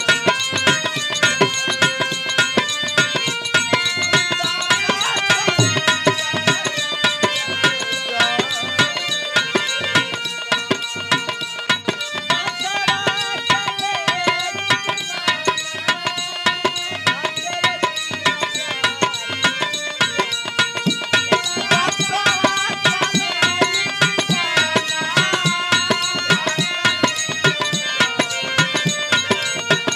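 Dholak hand drum played in a fast, steady rhythm, with a harmonium playing a melody of held notes over it: an instrumental passage of Bhojpuri birha folk music.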